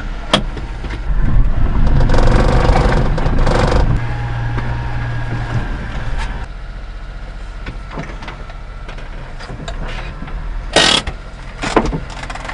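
Suzuki Carry DD51T mini truck's small three-cylinder engine running as the truck drives over a dirt and gravel yard, revved up harder from about a second in for a few seconds, then settling to a steadier run, with a sharp rattling clatter near the end.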